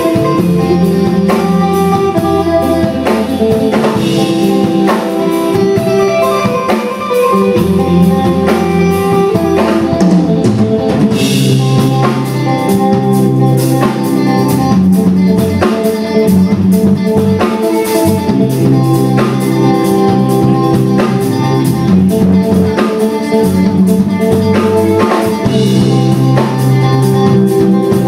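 Live band playing an instrumental passage: electric guitar over electric bass and a drum kit, with a cymbal crash about eleven seconds in.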